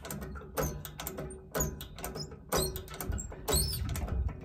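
Hand pump of a Kenworth cabover's hydraulic cab-tilt jack being cranked with a bar, one stroke about every second: each stroke a clunk with high squeaks from the lever.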